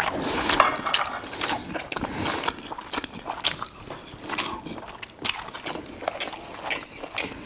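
A man chewing a mouthful of burger patty and rice close to the microphone, with irregular sharp clicks of a knife and fork against the plate.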